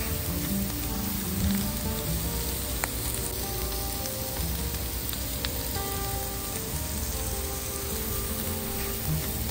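Thin slices of meat sizzling and frying on a portable gas griddle, a steady hiss with a couple of light clicks of chopsticks as more slices are laid on. Soft background music runs underneath.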